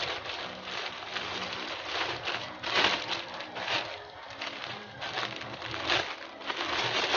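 Plastic courier pouch crinkling and rustling as it is opened by hand, with louder crackles about three seconds in and again near the end.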